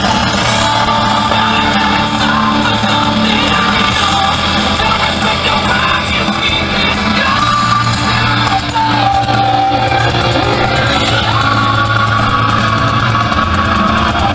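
Loud music with a singing voice that at times shouts.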